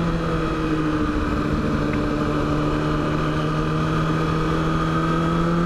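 Motorcycle engine running at a steady pitch while riding, with wind noise over the microphone; the engine note creeps slightly higher near the end.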